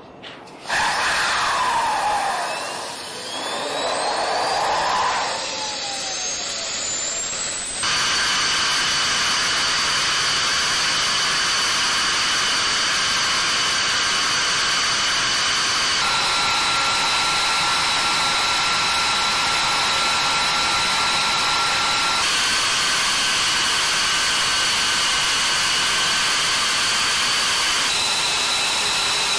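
F-22 Raptor's jet turbines starting up. A whine sweeps in pitch, rising over several seconds, then settles into a loud, steady high-pitched whine of several tones that shifts abruptly in pitch a few times.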